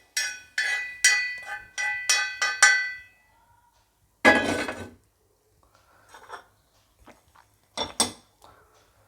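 Metal spoon clinking against steel cookware: a quick series of ringing clinks for about three seconds, then one louder clatter, then faint scrapes and taps.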